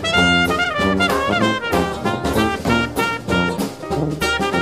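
Background music: a jazz tune played on brass instruments.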